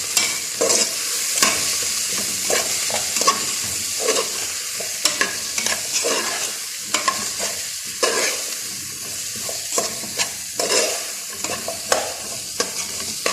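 Cauliflower, potato and onion sizzling in butter and oil in a pot, with a spoon stirring them and scraping against the pot in repeated short strokes over a steady frying hiss.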